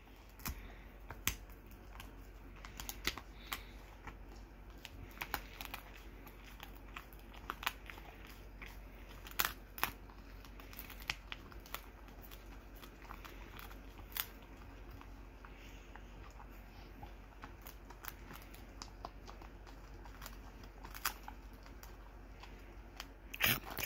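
A pit bull gnawing a dried pig ear: irregular crunching and cracking clicks as the tough chew gives under her teeth.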